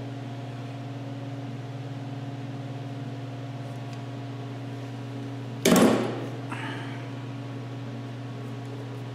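Steady low electrical hum, with one loud metallic clank and a brief ring a little past halfway, from hand work on an air compressor's pressure-gauge fitting.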